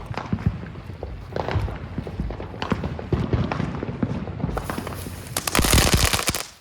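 Big Fireworks 'Red Super Balls' novelty firework going off, a steady run of pops and crackles that thickens into a dense, loud burst of crackling near the end before cutting off suddenly.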